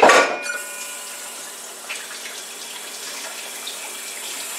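Kitchen tap running steadily into a sink, after a sudden clatter at the very start.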